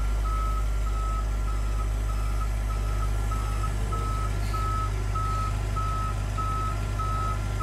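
Reversing alarm of a 40,000 lb-capacity forklift beeping steadily, about two to three beeps a second, over the low, steady drone of its engine as it backs away with a heavy load on its forks.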